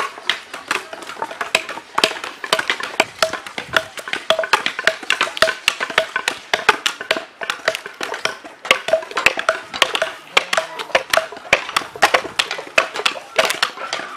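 Several machetes chopping and shaving wooden blocks: a rapid, uneven run of overlapping sharp wooden knocks.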